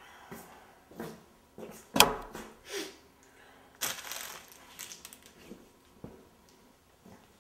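Plastic candy-bar wrappers rustling and crinkling as a pile of Snickers bars is handled, with a sharp knock about two seconds in, the loudest sound, and a longer rustle about four seconds in.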